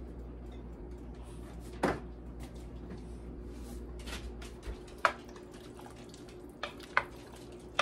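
Kitchen handling sounds: a few sharp knocks and clicks as things are picked up and a wooden spoon stirs thick stew in a Dutch oven, over a steady low hum.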